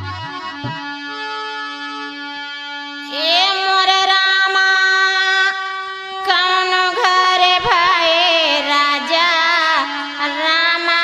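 Held instrumental notes with a brief low thump at the start, then about three seconds in a woman begins singing a sohar folk song into a microphone, with long wavering notes and a short break near the middle.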